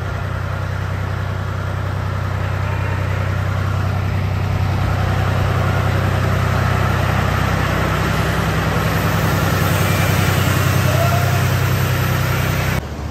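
Engine of a self-propelled crop-spray machine running steadily, growing a little louder through the middle, then stopping abruptly near the end.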